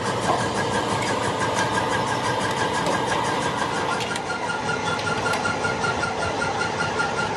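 Factory machinery running steadily, with a rapid pulsing tone repeating about five times a second that drops slightly in pitch about four seconds in.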